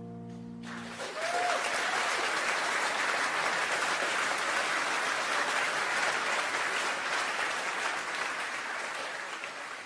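Audience applauding, starting about a second in as the last held notes of a piece of music die away, and fading out near the end.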